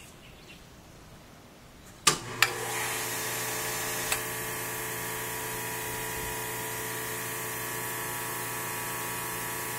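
High-pressure misting system switching on about two seconds in with a couple of sharp clicks, then its pump running with a steady hum while the nozzles give off a high hiss of water mist.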